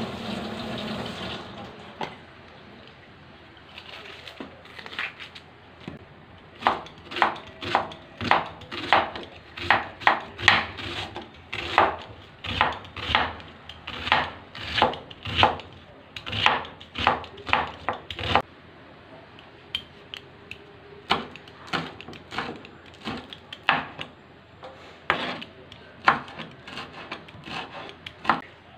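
A kitchen knife chopping on a cutting board, slicing a red onion and then red chillies: a long run of sharp knocks about two a second, then a pause and slower, more scattered chops. A tap runs for the first couple of seconds.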